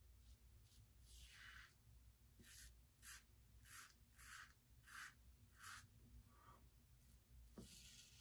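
Faint rasp of a Karve Christopher Bradley safety razor with a D plate and a fresh Nacet blade cutting stubble through lather, on a first pass with the grain. It comes as about eight short strokes, most of them in quick succession through the middle.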